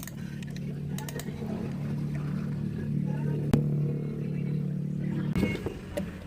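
A steady low mechanical hum, like a motor running, with a single sharp click about three and a half seconds in; the hum fades near the end.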